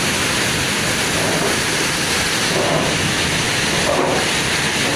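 Heavy rain pouring down in strong wind: a steady, dense hiss.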